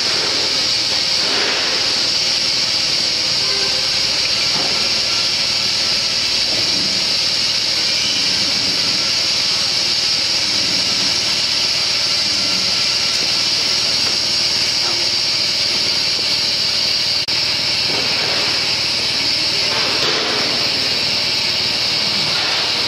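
Bubble film making machine running, a loud steady hiss with a machine hum beneath it.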